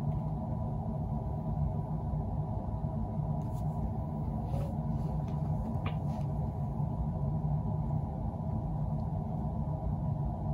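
Steady low background rumble with a faint hum. A few light clicks and taps between about three and six seconds in come from hands handling the book, glue bottle and applicator.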